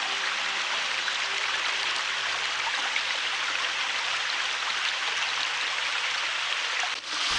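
A stream running over rocks: a steady rush of water that dips briefly near the end.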